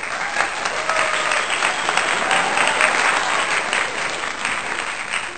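A crowd applauding: many hands clapping steadily, with faint voices mixed in.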